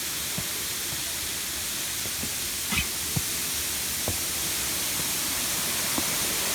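Steady rushing of a waterfall, an even hiss that grows slightly louder, with a few faint taps.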